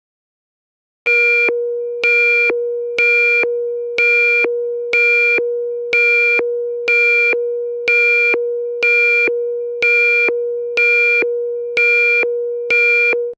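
Electronic emergency alert alarm: a steady low tone with a higher beep repeating about once a second, starting about a second in after silence and cutting off abruptly near the end.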